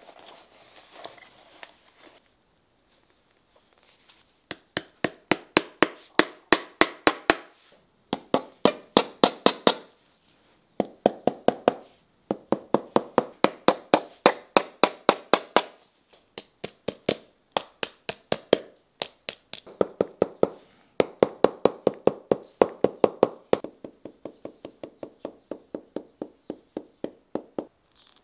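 Shoemaker's hammer tapping leather on a boot last: quick light strikes, about four a second, in runs of a few seconds with short pauses between them. Faint rustling of handled leather in the first couple of seconds.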